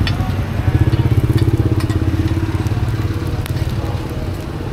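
A motorbike engine running close by. It grows louder just under a second in, then fades away as the bike passes.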